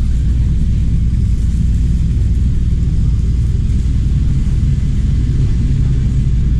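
Steady low outdoor rumble with no distinct events, the kind of background noise of a busy street.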